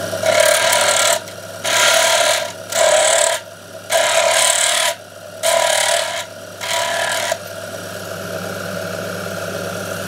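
Giraud power case trimmer running with a steady motor hum, cutting six Lapua brass rifle cases in turn. Each case makes a short rasping cut, about one a second, as it is trimmed to length and chamfered inside and outside in one pass.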